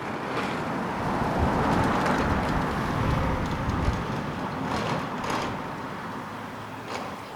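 A car driving past on a country road, its tyre and engine noise swelling and then fading away.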